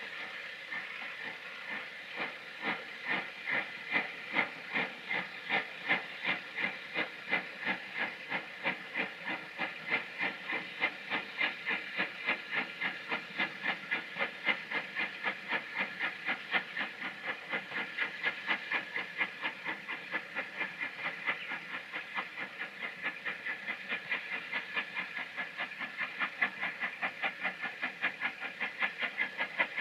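Steam locomotive working hard as it pulls away with a train of coaches: a regular chuff of exhaust beats over a steady hiss of steam from the cylinder drain cocks. The beats quicken from about two to about four a second as the train picks up speed.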